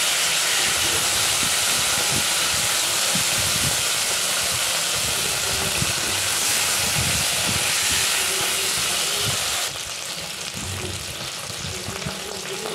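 Eggplant pieces frying in hot oil in an iron kadai: a steady sizzle that gets quieter about ten seconds in.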